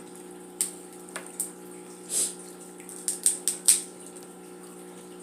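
Eating sounds from a seafood boil: a run of short, sharp smacks and clicks, clustered about three seconds in, over a steady low hum.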